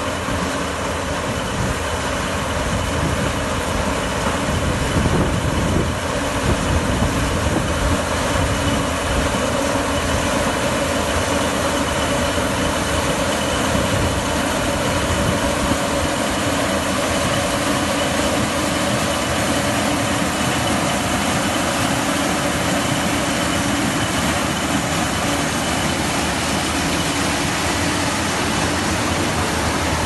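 Kartar Crop Cruiser combine harvester running while harvesting standing maize: the steady drone of its diesel engine and threshing machinery, with a thin steady whine high above it. It grows a little louder in the first several seconds.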